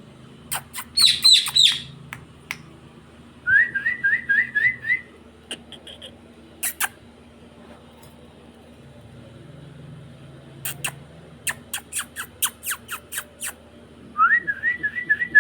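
Pet parrot whistling, a quick series of short rising whistle notes, twice, with a brief squawky call about a second in. Sharp clicks come in between, with a run of them in the middle.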